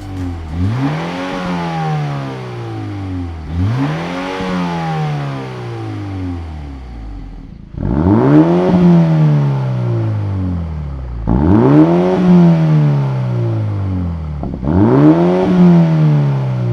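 BMW X2 M35i's turbocharged four-cylinder engine being free-revved five times through a Fi Exhaust valvetronic catback with quad tips. Each rev climbs quickly, then falls back slowly over a few seconds, and the last three are louder than the first two.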